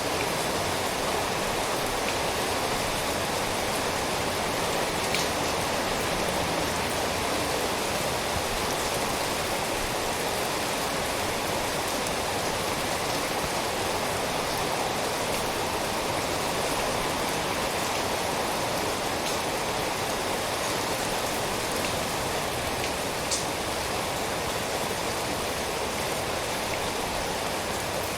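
Steady rain falling, a dense, even patter with no let-up, and now and then a single drop ticking a little louder.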